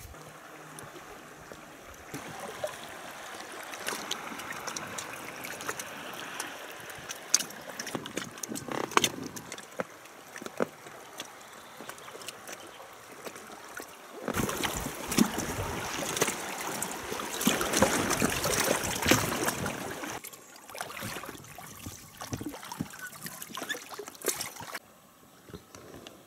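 Water splashing and trickling around a boat drifting down a river, with small knocks and ticks, louder for several seconds past the middle.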